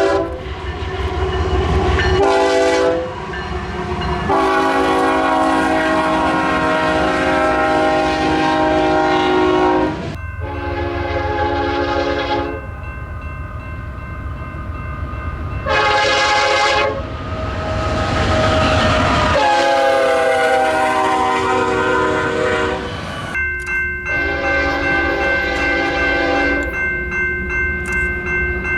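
Locomotive air horn sounding a multi-note chord in a series of long and short blasts, over the low rumble of a moving train.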